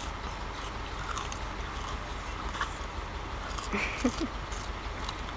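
English bull terrier puppy chewing and biting on a fresh pea pod, with scattered short crunches and clicks. A short, louder sound comes about four seconds in.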